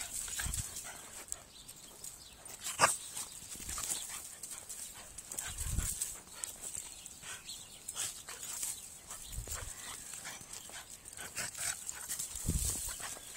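Two dogs, one a white spotted bulldog, play-wrestling on dry leaves and grass: scuffling and rustling with scattered clicks, a sharp click about three seconds in, and a few dull thumps.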